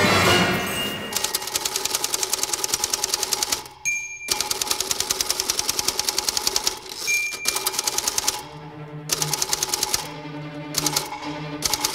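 Rapid, even clicking at about ten clicks a second, in runs that each end with a single bright ding, twice, over background music that brings in low notes in the second half.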